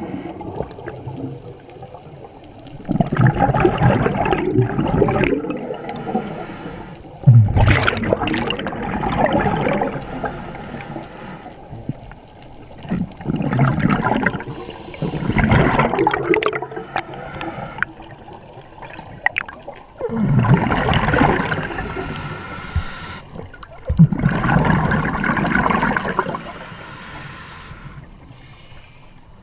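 Scuba regulator breathing recorded underwater: the diver's exhaled bubbles come in bursts of two to three seconds, about six times, with fainter hissing breaths in between.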